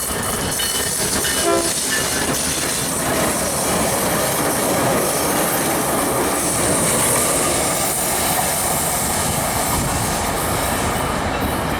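Tri-Rail passenger train, a BL36PH diesel locomotive pulling three passenger cars, passing close by: a loud, steady rush of locomotive and wheel-on-rail noise. A last short horn note sounds in the first second or two.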